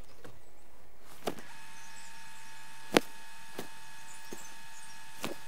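Handling of a scoped rifle during dry practice mounts: a few sharp clicks and knocks, the loudest about three seconds in. A steady electrical hum comes in about one and a half seconds in.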